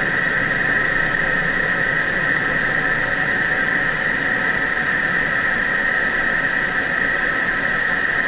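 Steady cockpit noise of an F-16D fighter jet in flight: the rush of air and engine, with a strong, even high hiss over it.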